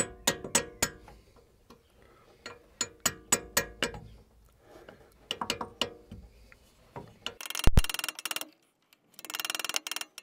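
Light taps on a thin steel chisel wedged behind a seized plastic ABS wheel speed sensor in the hub, each a sharp metallic tink, about three a second in short runs, as the stuck sensor is tried for movement. Near the end come two bursts of rough noise, each with one heavier knock.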